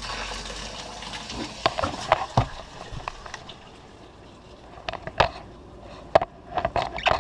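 Water running from a motorhome's shower on a just-repaired hot-water line, with a scattering of sharp knocks and clicks.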